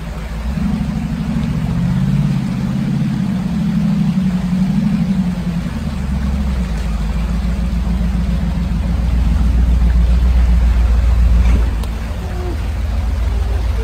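Off-road 4x4's engine running and revving unevenly as it comes over the crest of a steep dirt bank and drives down it. The low rumble swells to its loudest about two thirds of the way through, then drops back.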